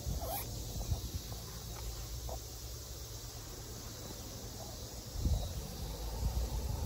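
Wind buffeting the microphone in uneven low rumbles, stronger about five seconds in, over quiet outdoor ambience with a few faint short chirps near the start.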